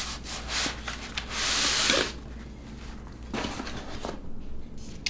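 A tripod sliding out of its padded fabric pouch: the fabric rustles and rubs, with one longer, louder rub lasting most of a second about a second in, then lighter handling.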